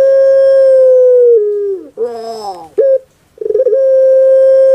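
Puter pelung dove (Streptopelia risoria) giving its long coo. A loud, steady held note drops in pitch at its end, then comes a quick rolling phrase of falling notes and a short note. A second long held note starts about three and a half seconds in.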